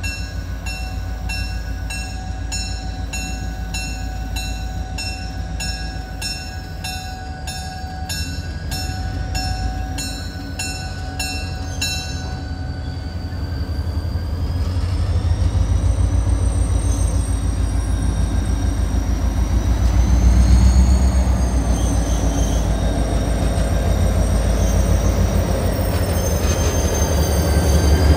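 Diesel locomotive rumbling as it pulls slowly past, growing louder about halfway through. A bell rings about twice a second for the first twelve seconds, then a high, wavering squeal of steel wheels on the rails takes over.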